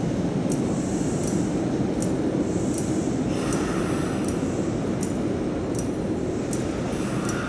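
Hanshin 9000-series electric train standing at the platform, its onboard equipment giving a steady low hum, with faint high ticks about every two-thirds of a second.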